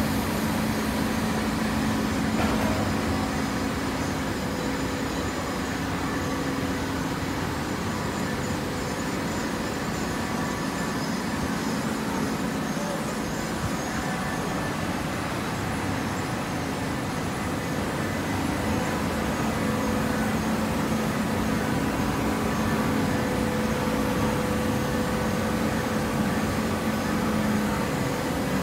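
Horizontal fiber baler running: a steady mechanical hum with a held low tone over general machine noise. The low tone fades for several seconds in the middle and comes back strongly.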